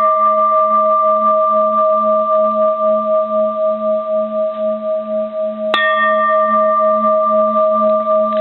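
Bronze Japanese Buddhist temple bell ringing after a light tap, its long tone wavering in a slow pulse as it fades. It is tapped again about six seconds in, bringing back the bright upper ring, which dies away quickly while the deep tone lingers.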